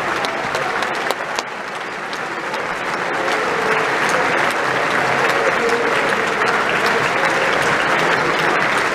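Large audience applauding: dense, steady clapping that dips briefly about a second in and then swells louder, with voices calling out under it.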